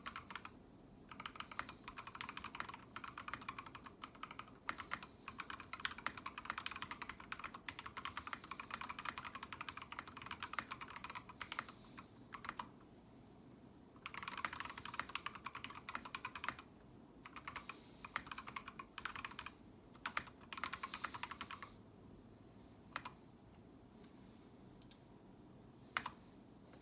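Typing on an Idobao Crystal mechanical keyboard with lubed and filmed Kiwi tactile switches: fast runs of keystrokes with short pauses, thinning out to a few single key presses near the end.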